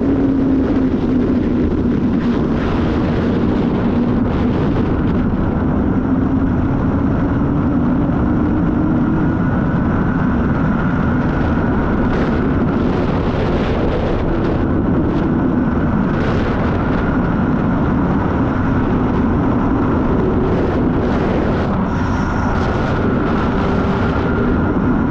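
Sport motorcycle riding at a steady cruising speed, its engine holding a constant note that drifts only slightly up and down, under heavy wind rush on the helmet-mounted camera's microphone.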